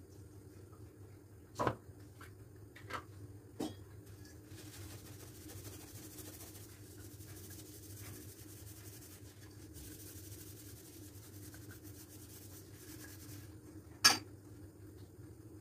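A few sharp clinks and knocks of hard household items being handled and set down, the loudest one near the end, over a steady low hum.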